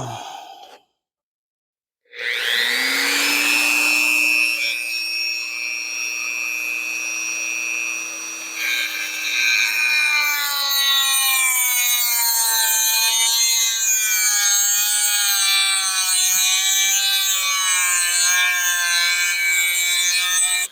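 A shop machine's electric motor spins up with a quick rising whine about two seconds in, then runs loud and steady with a high pitched hum, its pitch slowly sagging as if under growing load.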